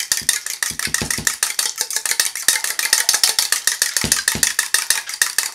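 Eggs being beaten in a small stainless steel bowl with a fork or whisk: the metal utensil strikes the bowl in rapid, even clicks, with a few dull knocks about a second and four seconds in.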